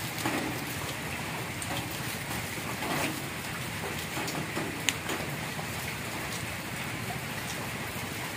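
Steady hiss of falling rain, with a few faint small clicks and one sharper click about five seconds in.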